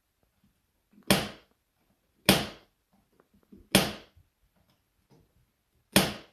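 Four sharp clicks, each dying away quickly and spaced one to two seconds apart, as a cat paws at a rocker light switch on the wall.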